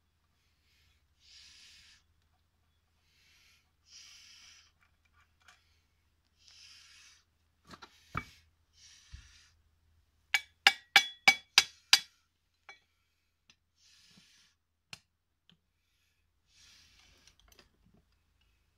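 Metal-on-metal clinks from tools and parts being worked on an old SAC vacuum pump: a single knock, then a couple of seconds later six sharp ringing clinks in quick succession, about three a second. Between them a person's breath hisses in short puffs every couple of seconds.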